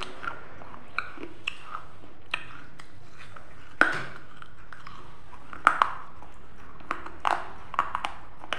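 Mouth eating sounds of green grapes being bitten and chewed: a crisp bite about four seconds in and another just before six, with wet chewing and small mouth clicks between.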